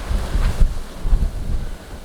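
Blizzard wind gusting across the microphone: a loud, uneven low rumble that swells and falls, easing off near the end.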